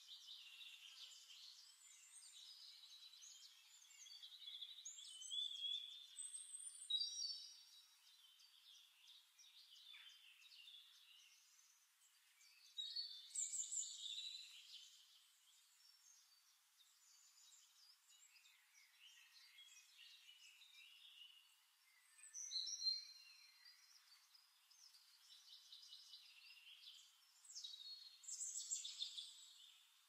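Faint birdsong: small birds chirping and twittering, with louder bursts every several seconds.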